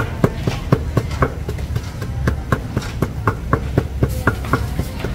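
Wooden pestle pounding in a large mortar, a steady rhythm of knocks about three to four a second, over a steady low background rumble.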